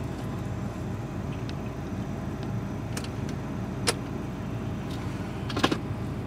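Engine and running noise of an off-road 4x4 driving slowly on a dirt track, heard from inside the cab. A few sharp knocks and rattles come about three, four and five and a half seconds in.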